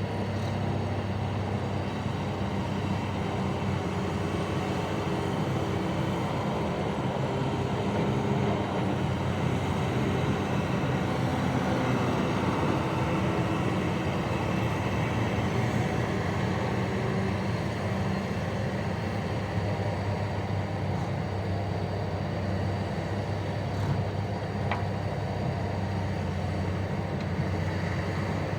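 Heavy mining machinery's diesel engine running steadily under load, a deep drone that swells a little midway.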